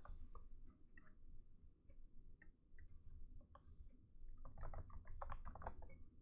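Faint computer keyboard and mouse clicks: a few scattered clicks, then a quick run of keystrokes about four and a half seconds in.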